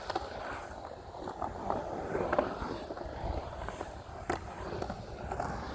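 Skateboard wheels rolling and carving across a concrete pool's transitions, with a sharp clack about four seconds in.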